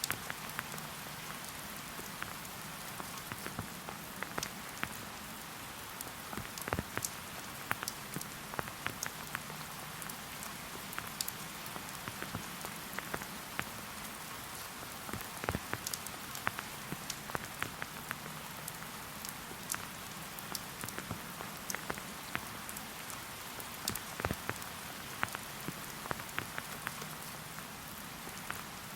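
Steady rain falling, with many separate drops striking close by at irregular moments.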